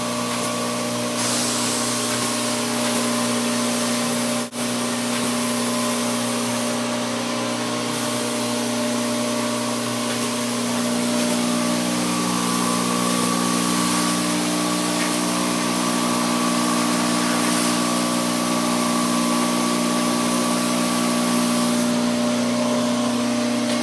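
Compressed-air spray gun spraying headliner adhesive: a steady hiss over the hum of a running machine, with a brief break about four seconds in.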